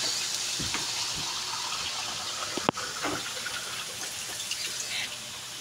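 A pot of sautéed beef skin, onion and ginger hissing on the stove, the sizzle fading slowly. A single sharp click comes about two and a half seconds in.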